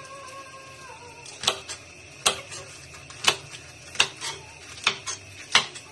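A kitchen knife chopping Chinese cabbage on a cutting board: sharp knocks of the blade striking the board, about eight in four seconds and unevenly spaced, starting about a second and a half in.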